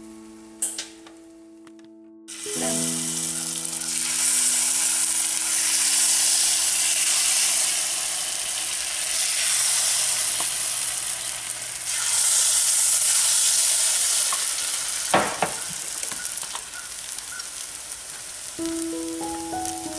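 Batter frying in hot oil in a cast-iron multi-cup pancake pan, a loud steady sizzle that starts abruptly about two seconds in and carries on to near the end, with a single sharp click about fifteen seconds in. Soft background music plays at the start and returns near the end.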